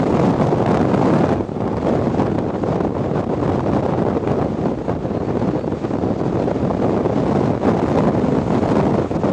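Strong wind blowing across the microphone, a loud, steady rushing noise that briefly eases about one and a half seconds in.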